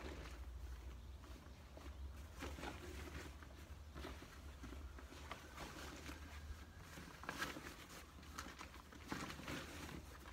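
Faint rustling and crinkling of a deflated air tent's fabric and its carry bag being folded and packed, in scattered short rustles over a steady low rumble.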